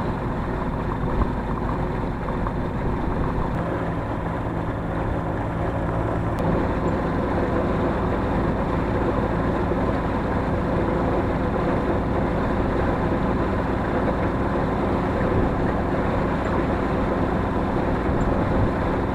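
An engine running steadily with an even drone; a lower part of the hum drops away about six seconds in.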